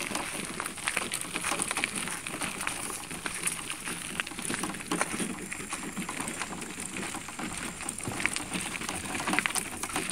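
Footsteps and rustling of someone walking along a dirt track, a steady scuffing with irregular small clicks.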